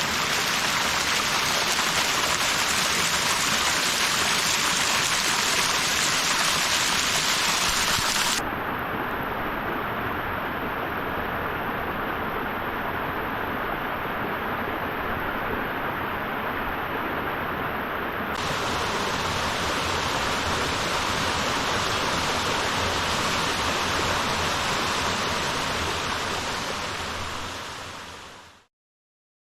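Steady rushing of a 25 m branching waterfall, running at low flow. For about ten seconds in the middle the sound turns duller with less hiss, then it comes back full and fades out near the end.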